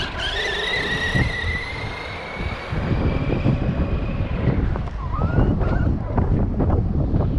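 Arrma Big Rock RC monster truck driving laps: a high whine from its electric motor and drivetrain for the first four seconds or so, then tyres crunching over the dirt with quick knocks and rattles.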